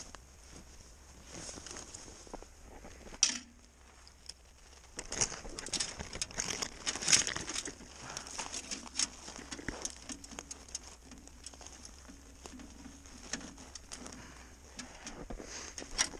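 Frosty spruce branches being snapped and broken off by hand, with needles and boughs rustling and crackling. A sharp crack comes about three seconds in, and a busy run of snaps follows from about five to nine seconds in.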